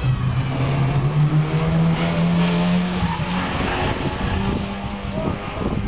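1979 Fiat X1/9's mid-mounted four-cylinder engine pulled hard through a slalom course. The engine note steps up in pitch about a second in, then fades after about three seconds as the car moves away.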